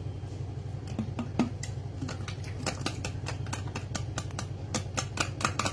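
Rapid, irregular clicking and rattling of small hard bits knocking inside a plastic bottle as it is shaken and tapped out over a pan, growing denser in the second half. A steady low hum runs underneath.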